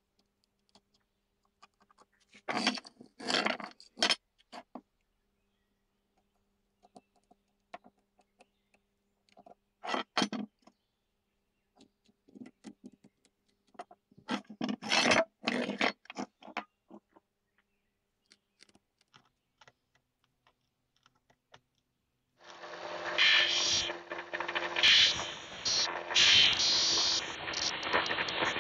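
Short scraping and rubbing sounds, a few scattered bursts, as a wooden grip cheek is handled and marked out with a marker against a bayonet's metal hilt. About 22 seconds in, an electric disc sander starts running steadily with a hum, and the wooden grip cheek is pressed against it and sanded with a rough grinding sound.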